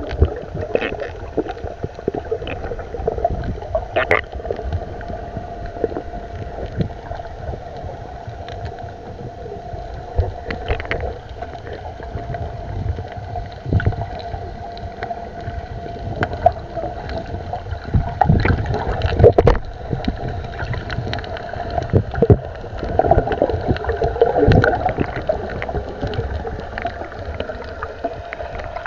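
Muffled underwater sound from a submerged camera: a steady hum and a wash of water noise, with scattered knocks and gurgling that grow busier about two-thirds of the way through.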